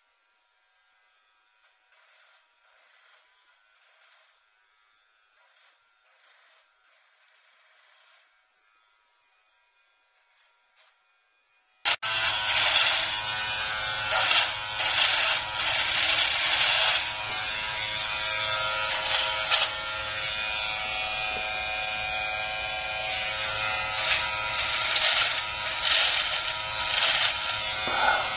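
For about the first twelve seconds there is only a very faint sound. Then, suddenly loud, an electric hair trimmer buzzes steadily as it is run over a moustache to shave it off, the buzz wavering as the blades work through the hair.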